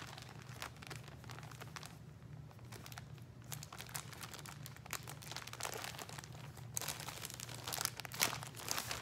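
Packaging crinkling and rustling in quick bursts as a clothing top is handled and unwrapped. There is a quieter lull about two seconds in, and the rustling picks up again near the end.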